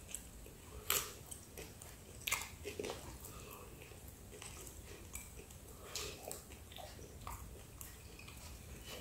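A man chewing a mouthful of Pizza Hut Melts, close to the microphone: soft, wet smacks and clicks, the most distinct about a second in and a little after two seconds.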